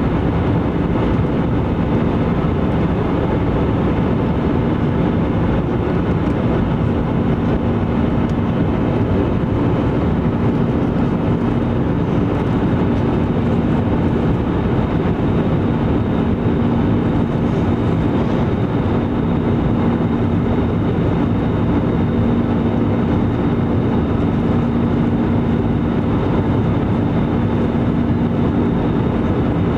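Steady jet engine and airflow noise inside the cabin of an Airbus A320 in flight, with a constant low drone.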